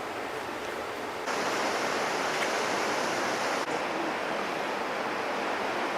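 Steady rushing noise of wind and water on a ship's open deck, stepping up abruptly about a second in and shifting again a little past halfway.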